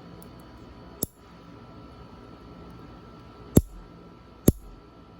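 Metal nail clipper snipping through fingernails: three sharp clicks, one about a second in and two louder ones near the end.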